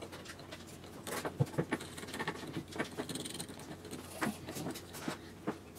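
Small metal nuts being threaded by hand and with a nut driver onto the screws that hold a motor to a plywood mount: scattered light clicks and scrapes of metal against metal and wood.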